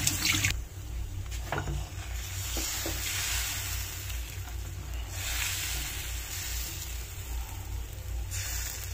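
Thin patishapta batter sizzling in a hot nonstick frying pan while a ladle spreads it into a round crepe, the ladle scraping softly over the batter. A light knock about a second and a half in and another a second later.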